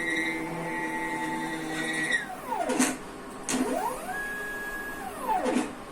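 Stepper motor driving a homemade CNC's Z axis: a whine that rises in pitch as the axis speeds up, holds steady, then falls as it slows to a stop. It happens twice, with a few sharp clicks between the moves.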